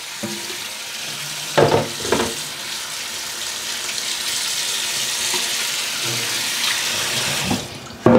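Kitchen tap running onto a plastic cutting board in a stainless steel sink as it is rinsed, a steady splashing hiss that stops about a second before the end. A couple of brief knocks come early on, and a louder knock at the very end.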